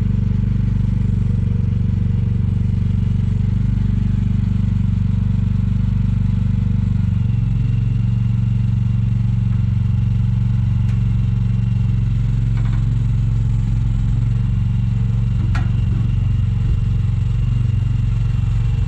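Mini excavator's small diesel engine running steadily, its note shifting slightly about seven seconds in, with a few light metallic clanks.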